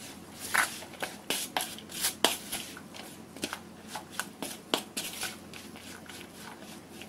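Wooden spoon stirring seasoned shredded jackfruit in a plastic mixing bowl: irregular soft scrapes and clicks of the spoon through the fruit and against the bowl, the sharpest about two seconds in.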